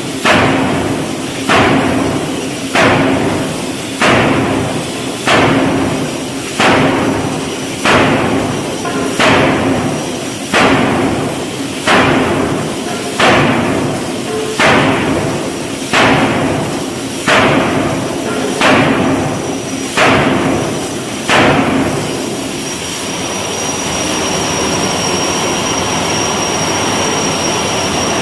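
Giant steam forging hammer striking red-hot steel in a steady rhythm, one heavy blow about every second and a quarter, each with a short ring. After about twenty blows the hammering stops, leaving a steady rushing noise with a high whine.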